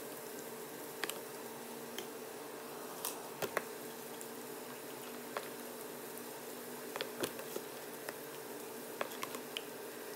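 Hand squishing and rubbing wet marinade paste into a whole fish in a plastic tub, with small, irregular wet clicks, over a steady low hum.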